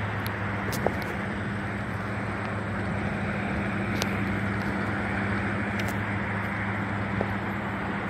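Steady background noise of distant traffic with a constant low hum and a few faint ticks; no train horn or passing train.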